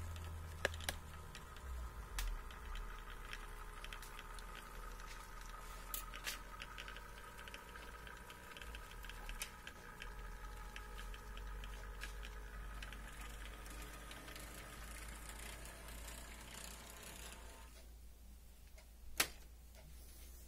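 HO scale model 51 class diesel locomotive running along the track with its wagons: a faint steady whine of the small motor with scattered clicks of wheels and couplers over the rail. The whine stops shortly before the end, followed by a single sharp click.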